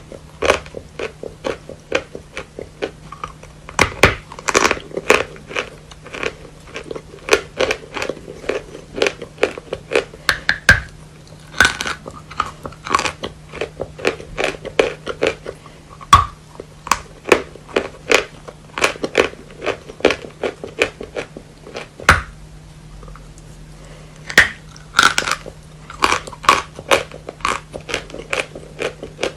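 Natural chalk being bitten and chewed close to the microphone: a dense, irregular run of sharp crunches, with a faint steady low hum underneath.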